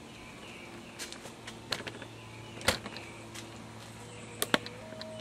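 A few sharp knocks and clicks of a handheld video camera being picked up and carried, over a faint steady background hum.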